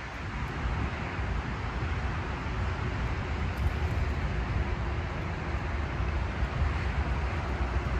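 Steady hum of distant motorway traffic, with wind rumbling on the microphone.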